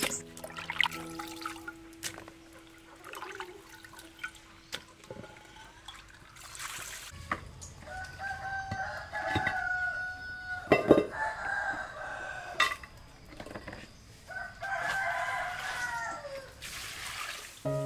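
A rooster crowing twice, each crow about two seconds long, while water splashes and pours from a clay basin being tipped out. A sharp knock, the loudest sound, comes about midway.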